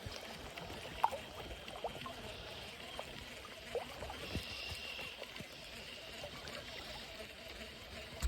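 Shallow creek water trickling and gurgling over rocks, with a few short knocks and splashes, the sharpest about a second in.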